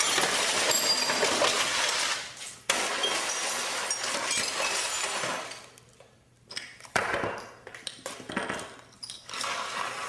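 Glass breaking and shattering sound effects: several sudden crashes, each trailing off into tinkling, with a brief near-silent gap before the last crash.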